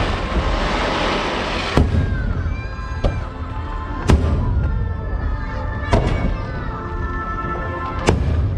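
Fireworks bursting overhead, five sharp bangs a second or two apart, with music playing underneath with sustained notes.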